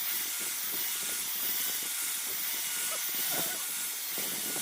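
Steady high hiss, with faint irregular knocks and a few short chirps underneath.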